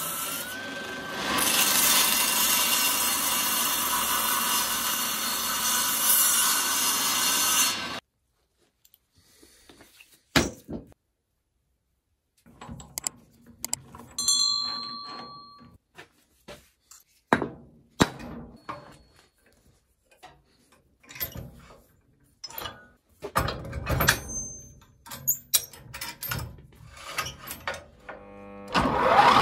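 Table saw cutting through a wooden block, loud and steady, stopping suddenly about eight seconds in. Then scattered clicks, knocks and short metallic clinks from a chuck key tightening a lathe's four-jaw chuck and a wooden block being handled.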